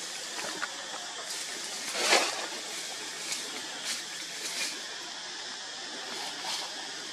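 Steady outdoor hiss with a few short clicks or snaps scattered through it, and one louder, brief noisy rustle about two seconds in.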